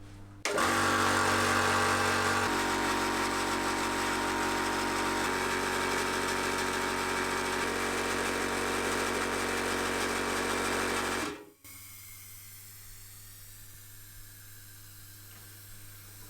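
HPA high-pressure air compressor starting up and running loudly and steadily while pumping air, settling slightly lower about two seconds in, then switched off abruptly after about eleven seconds. A quieter steady hum carries on after it stops.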